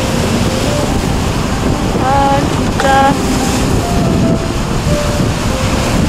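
Sea surf breaking and washing up a sandy beach, with wind buffeting the microphone as a low rumble. Two short high-pitched calls cut through about two and three seconds in.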